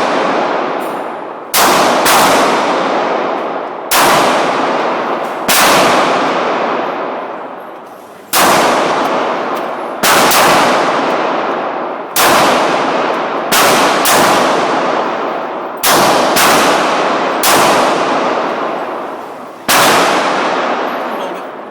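Glock 27 .40 S&W subcompact pistol firing about a dozen shots, one to three seconds apart with a few quick pairs. Each shot rings on in a long echoing decay off the walls of an indoor range.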